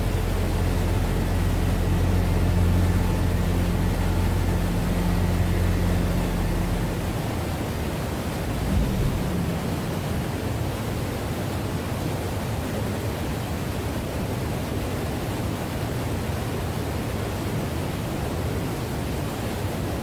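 Steady rush of flowing water, an even noise, with a low steady hum underneath that stops about seven seconds in.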